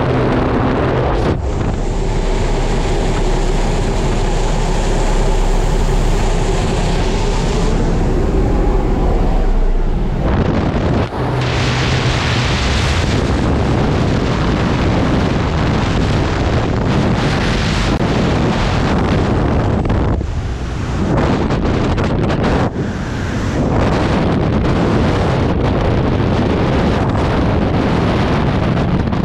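A propeller jump plane's engine runs steadily with wind rushing past the open door. Later, in freefall, the sound becomes a dense, steady roar of wind on the microphone.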